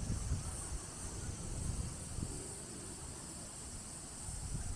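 Steady high-pitched drone of a summer insect chorus, with uneven low wind rumble on the microphone.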